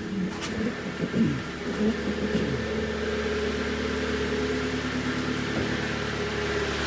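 Kia Cerato's 1.6 G4FC four-cylinder petrol engine idling steadily, freshly rebuilt with a sleeved block; it runs evenly and quietly.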